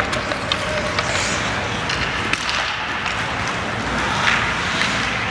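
Ice hockey play on the rink: a steady wash of rink noise with scattered sharp clicks and cracks of sticks, puck and skate blades on the ice.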